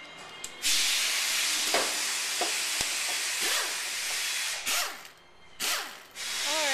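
Loud hiss of a pressurised jet of air or spray that starts about a second in, with two short breaks near the end.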